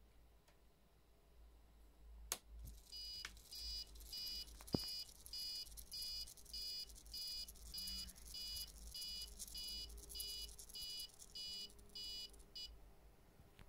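Small electronic buzzer on the Arduino-controlled model level crossing sounding its warning alarm: evenly repeated high beeps, about one and a half to two a second, starting about three seconds in and stopping just before the end. It sounds while the red lights flash and the gates close. A couple of sharp clicks come just before and early in the beeping.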